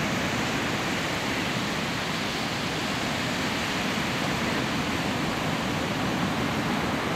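Steady rushing noise of ocean surf, an even hiss with no breaks.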